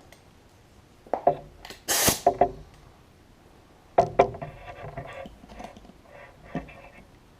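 Metal tools clanking and knocking against a mower wheel and tire, a few separate hits with a short ring after some of them. There is a brief hiss about two seconds in.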